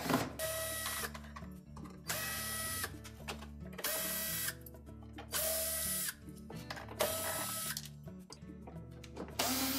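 Cordless drill/driver running in six short runs of about a second each, backing out the screws that hold a dishwasher's control panel; each run is a steady whine, and the last starts near the end.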